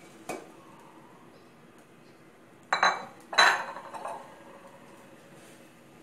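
Kitchenware clattering against an enamel cooking pot: two sharp knocks with a short ringing tail about three seconds in, a light clink near the start and another just after four seconds.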